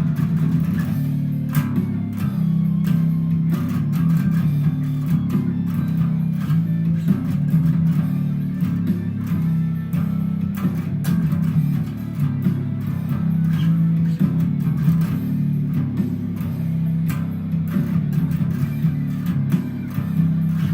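Bass guitar playing a song's bass line, a continuous run of plucked, held low notes.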